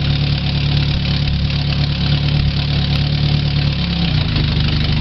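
A 2000 Chevy Tracker's 2.0-litre four-cylinder engine idles steadily just after a timing chain replacement. About four seconds in, the idle pitch drops and settles lower, as when the automatic transmission is put in gear and loads the engine.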